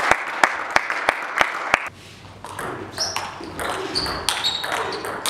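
Table tennis ball clicking sharply against bat and table at an even pace, about three times a second. It stops about two seconds in, giving way to quieter clicks and a few short high squeaks.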